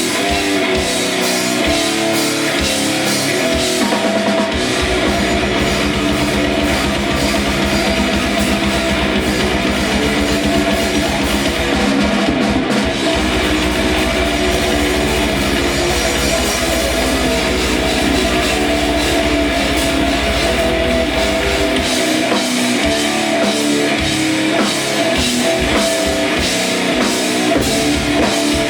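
A rock band playing live: electric guitars, bass and drum kit. The low end is heavy from about four seconds in until shortly before the end.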